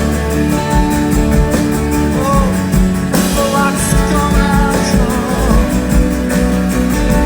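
Live rock band playing an instrumental passage: guitars and drums over a steady low bass, with long held melody notes and a sharp drum hit about three seconds in.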